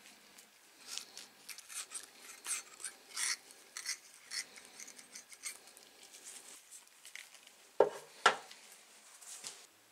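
Masking tape crackling and rustling as it is handled and wrapped around metal tin snips with gloved hands, followed about eight seconds in by two sharp knocks, half a second apart, as the taped snips are set down on a board.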